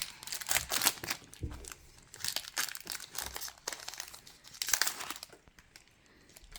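Foil wrapper of a Pokémon Brilliant Stars booster pack crinkling and tearing open in repeated bursts, dying away about five seconds in.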